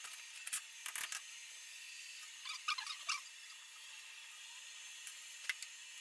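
Faint handling noise at a plumbing fitting: a few sharp clicks in the first second, a short run of small squeaks around the middle and one more click near the end, over a steady hiss.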